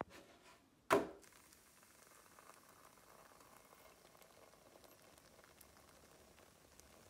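A roti cooking on a hot cast-iron tawa: a single sharp knock about a second in, then a faint steady sizzle with a few small crackles.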